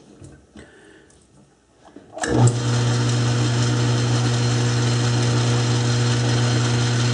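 South Bend metal lathe switched on about two seconds in, after a couple of faint clicks. Its motor and spindle come up to speed at once and run with a steady hum, the chuck turning free before any cut is taken.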